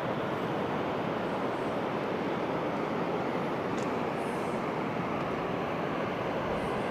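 Steady rushing noise of the fast-flowing Katun River, even and unbroken, with one faint tick about four seconds in.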